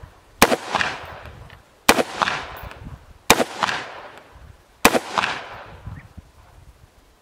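AR-style carbine fired four times in single shots, about a second and a half apart, each shot trailing off in an echo that dies away over about a second.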